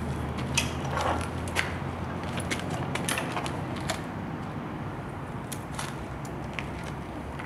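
Light clicks and knocks of a 1972 Honda XL250 motorcycle being handled at its controls while its cold engine is not yet running. A steady low hum sits underneath.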